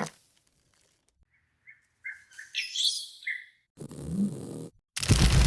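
A string of short, high chirps, bird-like. Near the end comes a loud burst of noise.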